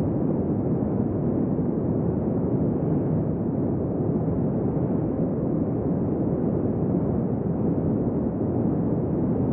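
Steady, deep white-noise track: a constant low, muffled hiss with no changes, pitches or rhythm.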